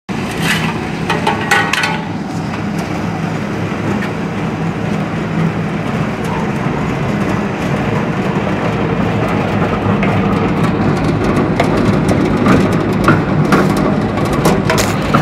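Straw briquette machine running, a steady low mechanical drone with a few sharp clicks near the start and again near the end.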